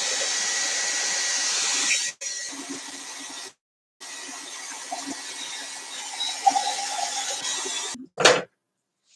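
A handheld electric dryer blowing steadily on spray ink, then switched off about two seconds in. A faint steady hiss and a few small handling sounds follow, with the sound cutting out completely for a moment.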